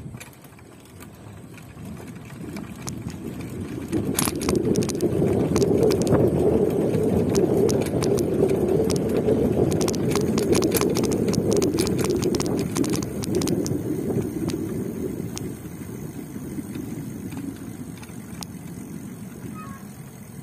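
Riding noise from a bike: a steady rush that swells about four seconds in, holds, then eases off, with many small clicks and rattles through the loudest part.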